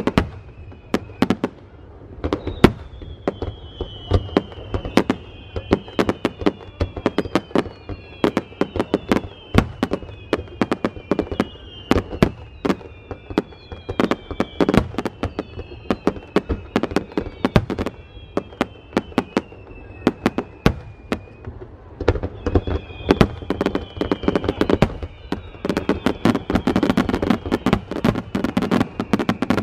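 Aerial fireworks going off in quick succession: a dense run of sharp bangs and crackles, overlaid with many whistles that slide down in pitch. The bursts thicken into a heavier, rumbling barrage over the last several seconds.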